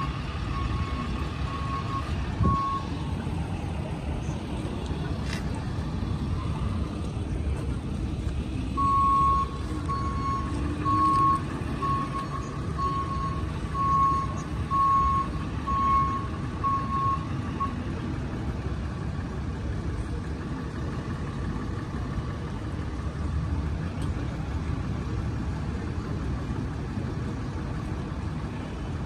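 Tow truck's backup alarm beeping about once a second as the wrecker reverses: a short run at the start and a longer run of about nine beeps in the middle. A steady low engine rumble runs underneath.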